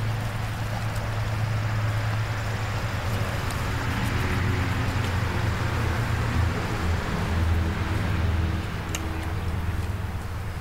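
A motor running steadily with a low hum that swells slightly through the middle and eases off near the end.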